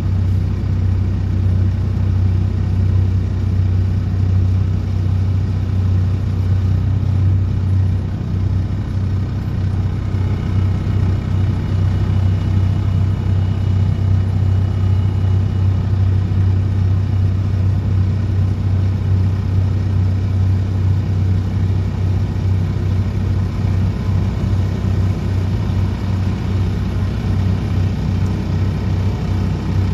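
Excavator-mounted DPD350T vibro hammer running with the excavator engine, a loud steady low drone, as it vibrates a steel sheet pile into the ground.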